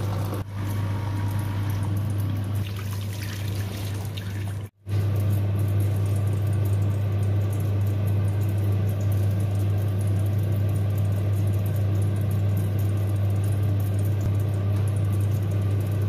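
Nespresso Krups Inissia coffee machine pumping water through during the descaling cycle: its vibratory pump hums steadily as water pours into the container below. The sound cuts out for an instant about five seconds in, then the hum resumes unchanged.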